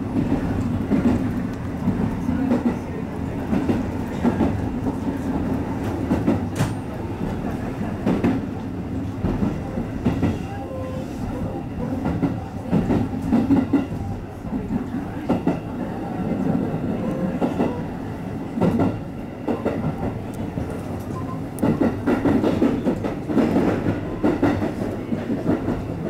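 A JR Nara Line electric train running along the track, heard from inside the front car. There is a steady low rumble of the wheels on the rails, with irregular clacks as the wheels pass over rail joints.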